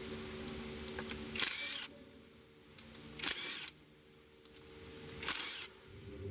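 Ratchet wrench clicking in three short strokes about two seconds apart, over a steady low hum.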